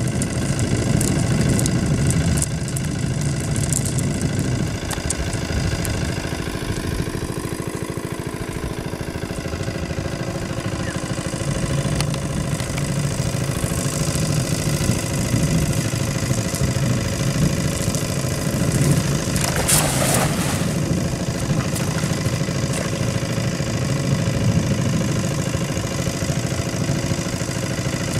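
An engine running steadily at idle, with a brief splash about two-thirds of the way through as the cast net lands in the water.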